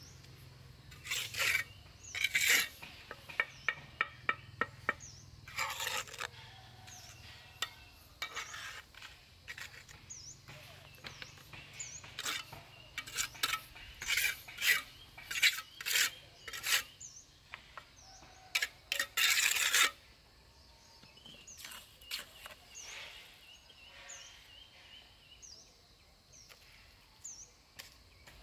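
Irregular clicks, knocks and scrapes of hands working with hard objects, with a longer loud scrape about two-thirds of the way through. A bird repeats a short falling chirp about once a second in the background.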